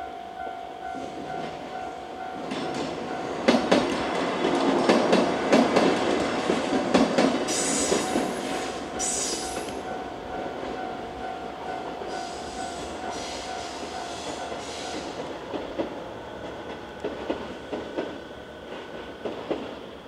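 Japanese level-crossing warning bell ringing steadily while a train passes over the crossing: the wheels clatter over the rail joints from about three seconds in, with brief high squeals around eight and nine seconds, then the train fades away and the bell stops near the end.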